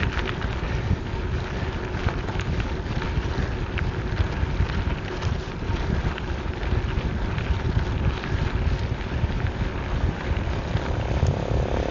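Wind buffeting the action camera's microphone as a gravel bike is ridden at speed, a steady rushing noise.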